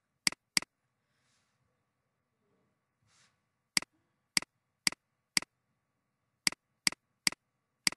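Sharp, isolated clicks of a computer mouse or keyboard while working in Photoshop. There are two clicks at the start, then after a pause of about three seconds a run of eight more, roughly two or three a second.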